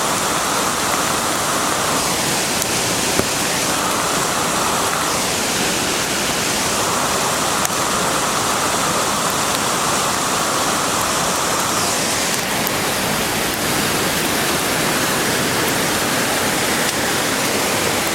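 Floodwater rushing and churning in a steady, unbroken rush.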